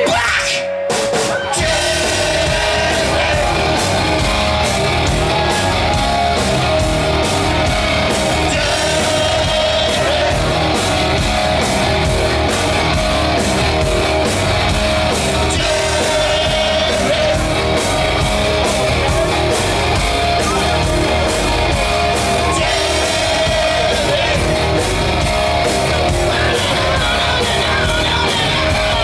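Live rock band playing at full volume: distorted electric guitars, bass and drums, with a man singing and shouting into a microphone. The band comes in about a second in and plays on steadily.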